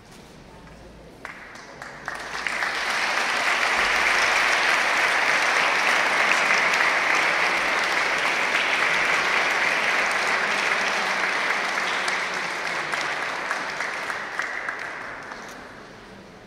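Church congregation applauding. The clapping starts a second or two in, swells quickly and holds steady, then dies away near the end.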